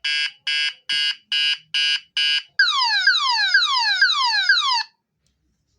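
Alarm horn of a home-made PIR motion-sensor alarm sounding a multi-tone siren. It gives a run of evenly spaced beeps at about two and a half a second, then falling sweeps repeated about three times a second, and cuts off suddenly shortly before 5 seconds in.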